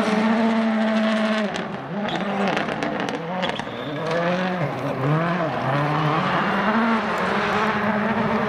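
Toyota Yaris WRC's 1.6-litre turbocharged four-cylinder engine at full throttle on gravel. The engine note holds steady, then drops and climbs again several times in the middle as the car lifts and shifts through bends, then holds steady again, with scattered sharp cracks throughout.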